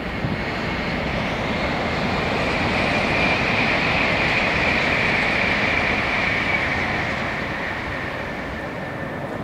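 A passing train: a steady rush of wheel and rail noise with a hiss on top, swelling to its loudest about halfway through, then slowly fading.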